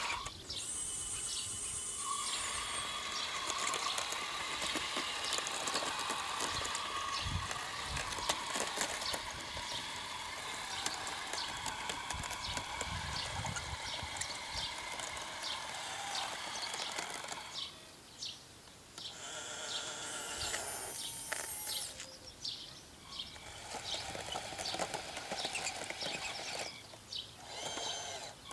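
Radio-controlled tracked loader driving over dirt: its electric drive gearing whines while the tracks clatter with rapid clicking. The sound drops away briefly a few times in the second half as the machine pauses.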